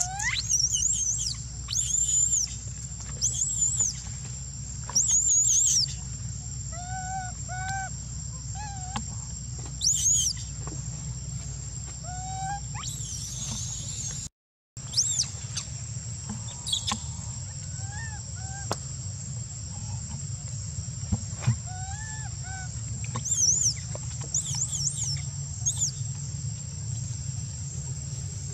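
Baby long-tailed macaque giving repeated high-pitched, arching screams, the calls of an infant left alone and calling for its mother, with softer, lower calls between them. A steady high insect drone runs underneath.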